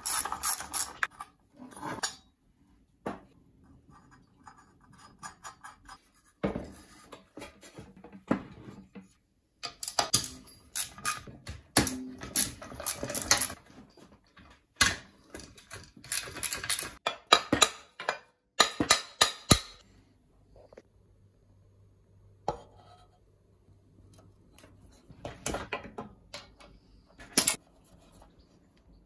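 Metal hand tools and lawnmower engine parts clinking and clattering during disassembly, with several runs of rapid clicking from a ratchet wrench turning bolts.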